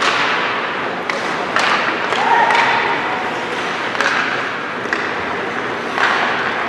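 Ice hockey play in an arena: puck and sticks knocking against the boards, about half a dozen sharp thuds and taps at irregular intervals, echoing in the rink.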